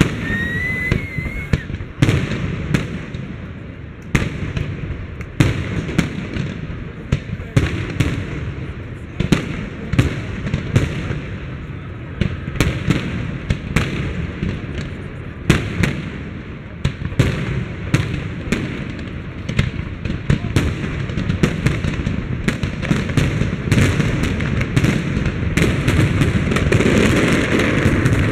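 Aerial fireworks display: a rapid, irregular string of shell bursts and bangs, crowding together near the end into a dense, continuous crackle.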